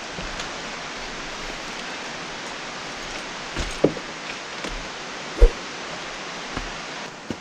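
Steady rush of river water, with a few dull thumps of boots and gear against a wooden barrier as a person climbs over it and steps down. The loudest thump comes about five and a half seconds in.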